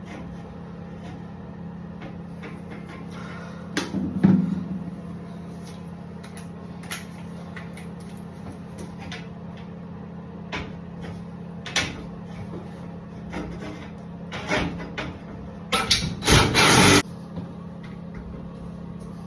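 Scattered knocks and clatter of metal shower-door rails being handled and fitted to the wall, with a louder rattling burst lasting about a second near the end, over a steady low hum.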